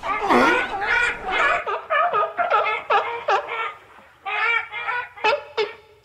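California sea lion barking repeatedly, about two short barks a second, with a brief pause about four seconds in.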